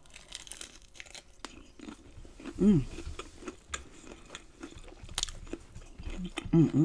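Close-miked crunching and chewing of crispy fried shrimp in a flour-and-cornmeal coating: a bite, then a run of sharp crackly crunches. A short hummed voice sound comes about midway, and another near the end.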